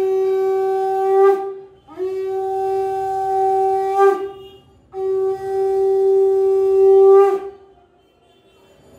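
Conch shell (shankha) blown in long, steady, horn-like blasts: one already sounding as it begins, then two more, each breaking off with a brief dip in pitch at its end.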